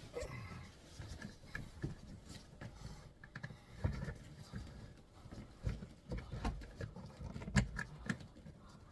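Hand fumbling blind inside a tight opening while trying to plug in an antenna connector: scattered rustling and scraping with light clicks and knocks.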